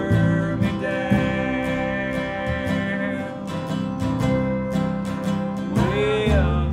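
Acoustic country band playing: strummed acoustic guitar and upright bass under sustained lead notes, with a short run of bending notes about six seconds in.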